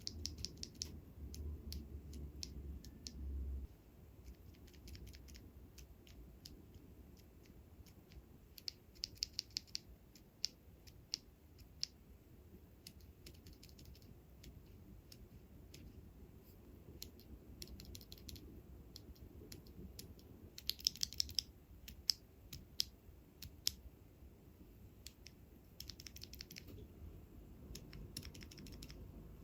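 Stock mechanical keyboard switches in a switch tester, pressed bare without keycaps, clicking and clacking in quick runs with pauses between.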